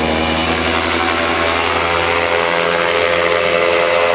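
Tandem paramotor's propeller engine running steadily at a constant pitch as the craft flies past.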